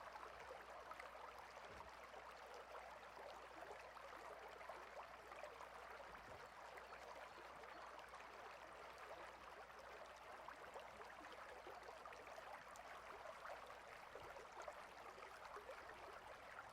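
Faint, steady rushing of a mountain stream's flowing water.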